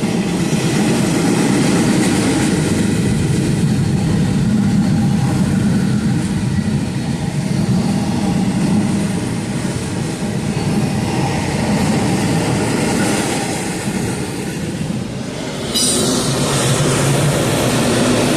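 Train cars rolling past close by, a steady rumble of wheels on rail. About 16 seconds in the sound turns suddenly brighter and hissier.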